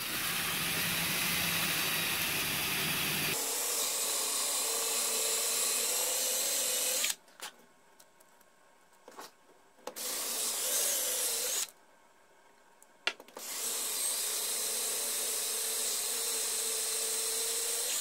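Drill spinning a homemade wooden facing tool with sandpaper on its end against the cut muzzle of an SKS rifle barrel, sanding the barrel face flat. It runs steadily for about seven seconds, stops, runs briefly about ten seconds in, then runs again from about thirteen and a half seconds on.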